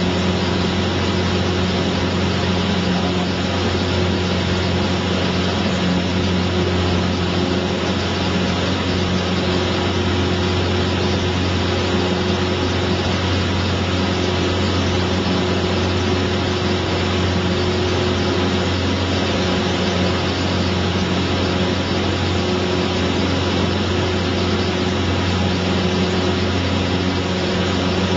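Light propeller aircraft's engine and propeller droning steadily at climb power just after takeoff, heard inside the cockpit. The low engine hum and cabin hiss hold an even pitch and level throughout.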